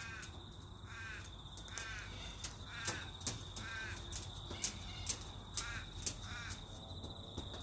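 Wild cockatoos calling repeatedly: short, arching squawks every second or so. Sharp ticks come in between, and a steady high tone runs underneath.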